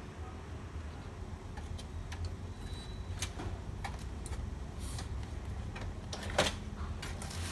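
Light clicks and knocks of the plastic housing of an opened-up HP Color LaserJet Pro MFP M181fw being handled, with one louder knock about six and a half seconds in as the scanner unit is gripped and lifted. A steady low hum runs underneath.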